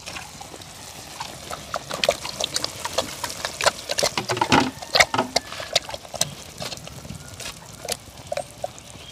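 A spoon clattering and scraping in a pot while stirring wet food, with many quick knocks and a squelching, liquid sound. It is busiest in the middle and thins out near the end.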